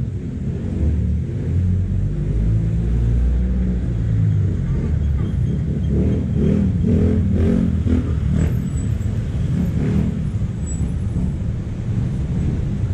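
Road traffic: vehicle engines, including a passing bus, running along the street as a steady low rumble.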